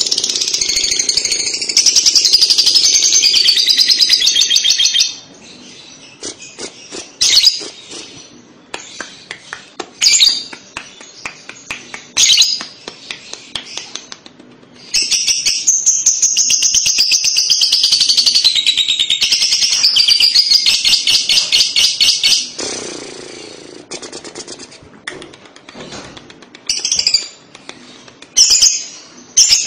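Fischer's lovebird giving its 'ngekek' song: long runs of rapid, high-pitched chattering, one about five seconds long at the start and another of about seven seconds midway, with short chirps and clicks in between.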